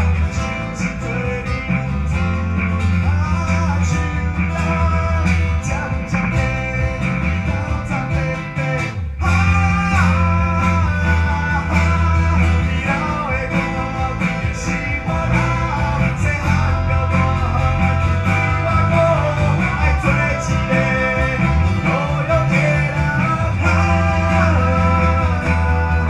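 Small band playing a song live: acoustic guitar and electric bass carry it, with a sung melody over them. The music drops out briefly about nine seconds in, then comes back.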